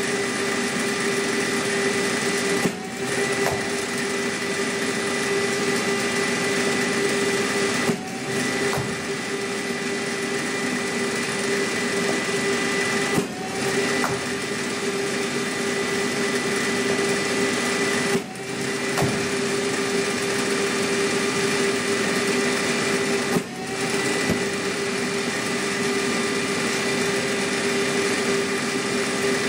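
A cricket bowling machine's spinning wheels whir steadily with a constant hum. About every five seconds, five times, the whir dips briefly and climbs back up as a ball is fed through the wheels and fired.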